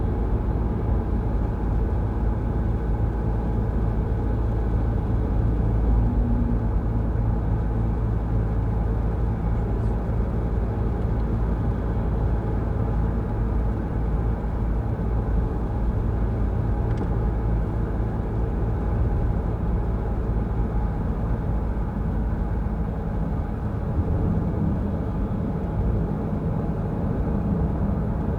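Car driving along the road: steady engine and road rumble with no sharp events.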